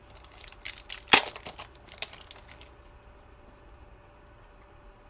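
A trading-card pack's wrapper crinkling and tearing while the cards are handled: a quick run of crackles with one sharp snap about a second in, then quieter handling.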